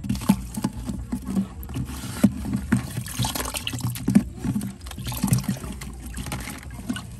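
A woven bamboo basket scraping and knocking against the inside of a plastic cooler, with small splashes of shallow water, in an irregular run of clatters and scrapes.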